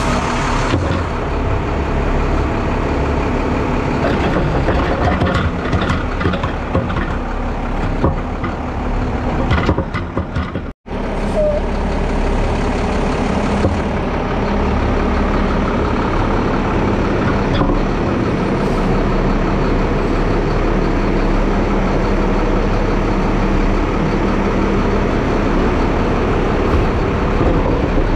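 Front-load garbage truck's diesel engine running steadily, with hydraulic noise as the forks lift and lower. The sound breaks off for an instant about eleven seconds in, then carries on with a steady hum.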